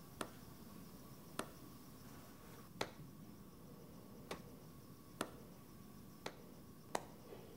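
Sharp single clicks of a laptop's keys or trackpad, seven in all, roughly one every second, over a faint steady background hum.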